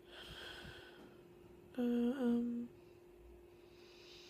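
A woman's short closed-mouth hum, "mm", about two seconds in, lasting under a second with a small rise and fall in pitch midway. It is framed by soft breaths, with a faint steady background tone throughout.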